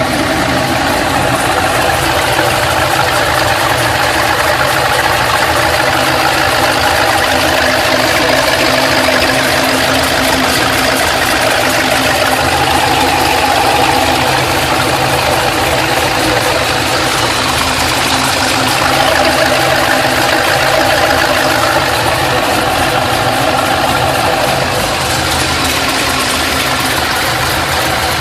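Pontiac GTO's LS2 V8 idling steadily with a ticking in its running, heard after a cylinder head, camshaft and intake swap.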